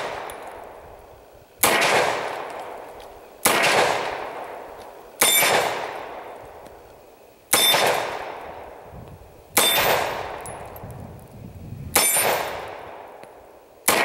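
Polish-made TT-33 Tokarev pistol in 7.62x25mm fired slowly, six shots about two seconds apart and a seventh right at the end. Each shot has a long fading echo.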